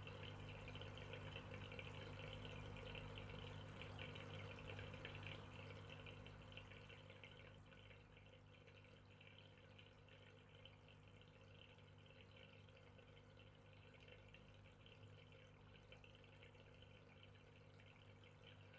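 Near silence: a faint steady hum of room tone that eases a little after about six seconds.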